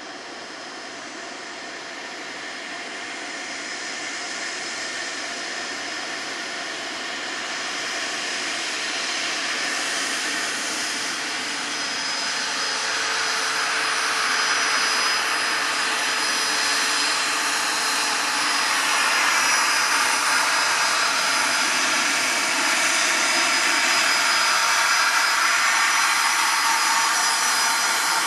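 The two rear-mounted General Electric CF34 turbofan engines of a Bombardier CRJ200 regional jet running, a high steady whine over a rushing noise, growing steadily louder as the jet comes closer and moves onto the runway.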